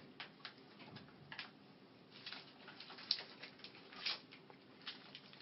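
Faint scratchy rustling and small clicks as tongue depressors are handled and slid into the stockinette covering a leg, with a sharper click about three seconds in.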